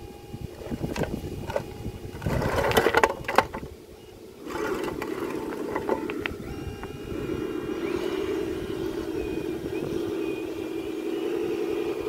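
Rocks clattering and tumbling out of the tipping bed of a radio-controlled Volvo articulated dump truck, about two to three seconds in. After a short lull, the model's motor runs steadily as the bed comes back down and the truck drives off.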